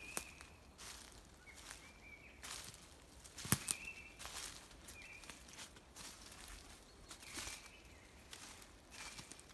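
Footsteps crunching over dry leaves and twigs on a forest floor, with a sharp twig snap about three and a half seconds in. Short high squeaks sound now and then between the steps.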